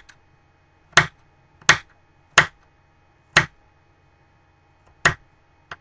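Kitchen knife chopping a celery stalk on a metal baking pan: six sharp knocks of the blade striking the pan, unevenly spaced between about half a second and a second and a half apart, the last one fainter.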